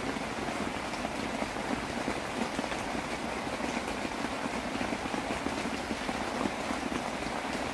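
Steady rain falling, a continuous hiss of many small drop ticks.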